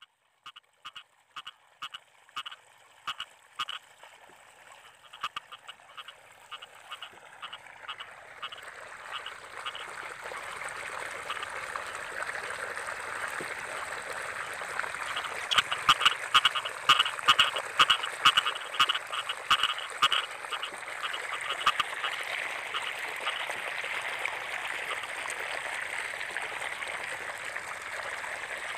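Frogs croaking in short, repeated calls, about two a second. About eight seconds in, a continuous din builds up behind them, and the croaks grow louder and denser around the middle.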